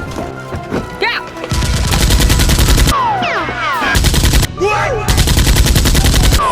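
Automatic gunfire sound effect in three rapid bursts: a long one about a second and a half in, a short one about four seconds in, and another long one near the end. Short falling whistling tones sound between the bursts.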